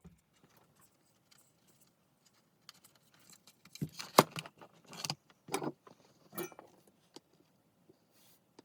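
Small clicks, taps and rattles of a USB power lead being handled and pushed through a 4x6 photo frame. The handling starts after a quiet couple of seconds, with one sharp click about four seconds in.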